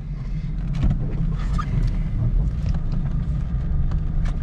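Mercedes-Benz SL550's V8 pulling away and driving slowly, a steady low rumble with road noise heard from inside the cabin, getting louder about a second in, with a few light clicks.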